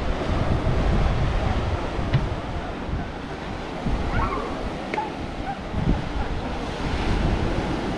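Wind buffeting the microphone over a steady rushing noise, with a few faint short high sounds a little past the middle.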